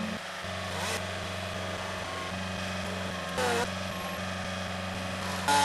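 An engine runs steadily at idle with a low, even hum. A couple of brief pitched sounds cut in, one about a second in and a louder one near the end.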